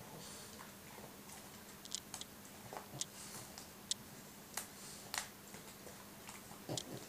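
A French bulldog biting and chewing at a bunch of dandelion stems: irregular sharp clicks and snaps, a few seconds apart at first and closer together later.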